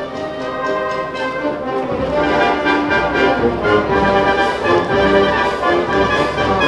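Instrumental music with many steady held notes, growing fuller and louder about two seconds in.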